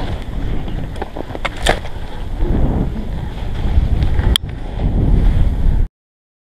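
Wind buffeting an action camera's microphone as a telemark skier runs through powder snow, a dense low rumble with a few sharp clicks. The sound cuts off suddenly to silence near the end.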